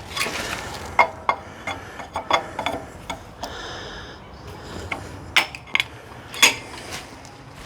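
Irregular sharp metal clinks and knocks from an electric motor hanging on an engine hoist as it is nudged into line with the transmission. The two loudest knocks come near the end.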